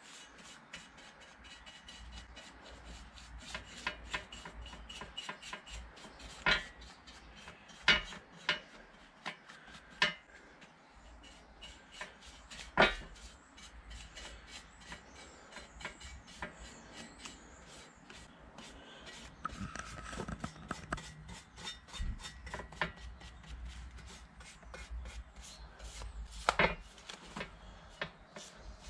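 Paintbrush scrubbing and dabbing Hydrate 80 rust converter onto a rusty metal motorcycle exhaust heat shield: a quick, uneven run of short brush strokes, with a few louder clicks and knocks in between.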